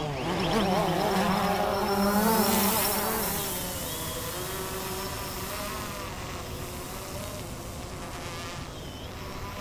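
DJI Phantom 2 quadcopter's four motors and propellers spinning up and lifting off: a buzzing whine that rises quickly at the start, wavers in pitch and is loudest for the first three seconds, then settles into a steadier, quieter buzz as it climbs.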